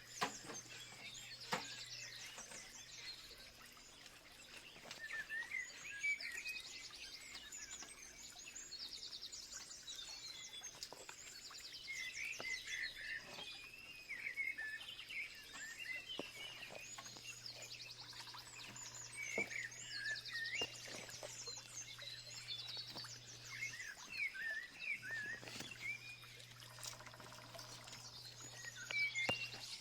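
Several birds chirping and singing, with quick repeated trills and short calls overlapping one another, over a steady low hum.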